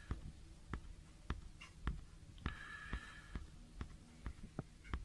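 Faint handling noise from fingers on an eyepiece: about a dozen irregular light clicks and taps, with a short soft rustle about halfway through.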